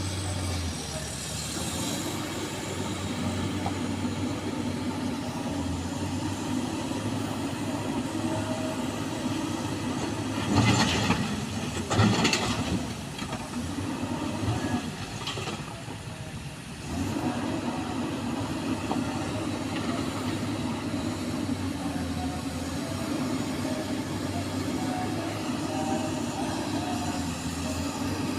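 Excavator's diesel engine running steadily under load, with two loud crashes near the middle as a load of stones is dumped into the dump truck's bed, then a smaller clatter a few seconds later. The engine sound drops briefly just after and comes back up.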